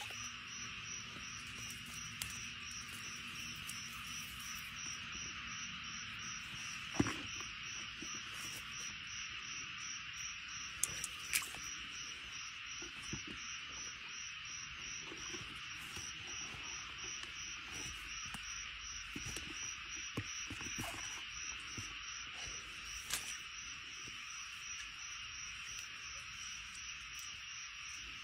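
Insects, crickets or similar, chirring steadily in the wet grass: a continuous high hiss overlaid by a rapid, evenly pulsing higher chirp. A few short sharp clicks and knocks break in, the loudest about seven seconds in.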